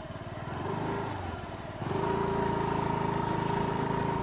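Motor scooter engine pulling away, getting louder, then stepping up to a steady higher pitch of acceleration about two seconds in.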